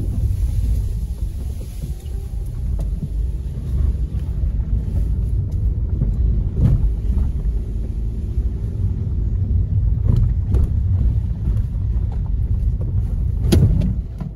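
Low, steady rumble of a car driving over rough ground, heard from inside the cabin, with a few sharp knocks as it bumps along; the loudest knock comes near the end.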